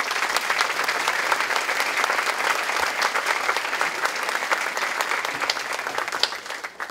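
Audience applause: a roomful of people clapping steadily, thinning out and dying away near the end.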